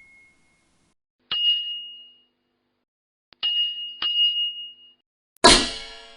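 Struck metal ringing: a single high ding, then two quick dings about half a second apart, then a louder clang with many ringing overtones near the end.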